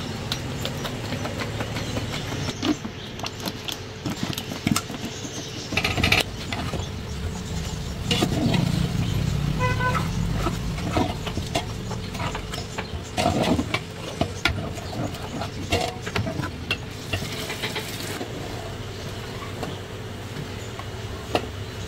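A long metal ladle stirring and scraping in a large aluminium pot of thick sauce, with scattered knocks against the pot. Under it runs a steady low rumble of traffic, and a vehicle horn toots briefly about ten seconds in.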